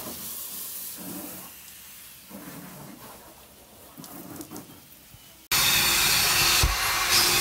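Garden hose spraying water, a soft hiss that fades away. About five and a half seconds in, a loud coin-operated car-wash vacuum cuts in suddenly, running with a steady hum as its hose sucks beach sand out of the car's footwell.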